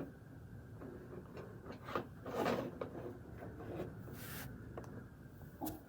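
Faint scattered clicks and soft rubbing, like small handling noises, with no alarm sounding.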